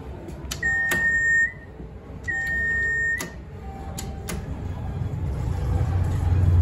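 Buttons on an Innovation elevator car panel clicking as they are pressed, each press answered by a steady electronic beep just under a second long, twice. A low hum from the elevator's machinery builds up in the last two seconds.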